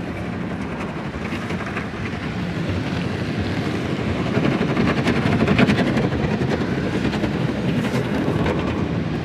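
Cloth brushes of a tunnel car wash scrubbing over the car along with water spray, heard from inside the cabin. It is a steady rushing rumble with rapid slapping of cloth strips, and it swells around the middle.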